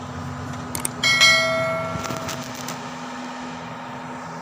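A couple of light clicks, then a sharp metallic clink that rings with several clear tones and fades over about a second and a half: a small metal part being handled or knocked. A steady low hum runs underneath.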